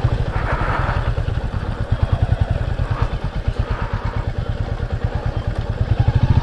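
Motorcycle engine running at low speed with an even, steady throb, easing off a little and picking up again near the end.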